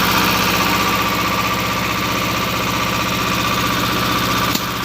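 Diesel tractor engine idling, with a steady high tone over it that stops abruptly with a click about four and a half seconds in.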